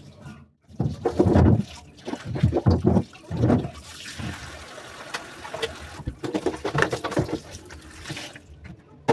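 Kitchen tap running into a steel sink, with irregular splashing and knocks as carrots are washed and a chopping board is rinsed under the stream. From about four seconds in there is a steady stretch of running water, ending about a second before the close.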